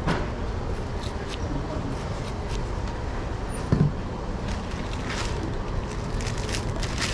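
A long knife trimming a pineapple in short cuts, then a dull thump on the tabletop just before four seconds in, the loudest sound. Plastic bags crinkle near the end, over a steady background hum.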